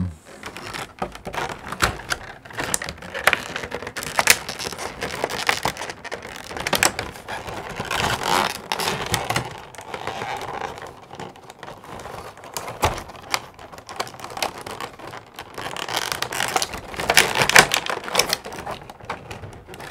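Collectible figure's box and packaging being handled and opened close to the microphone: irregular clicks, taps and rustles, busiest a little before halfway and again near the end.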